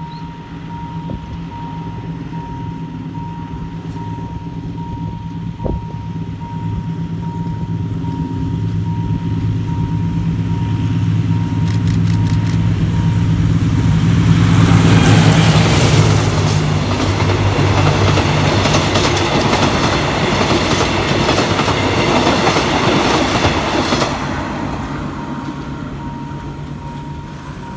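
GE diesel-electric locomotive hauling a passenger train past a level crossing. The engine's low drone builds as it approaches and is loudest just past halfway. The coaches then roll past and the noise drops off sharply about three seconds before the end, while the crossing's warning signal sounds a steady pulsing tone throughout.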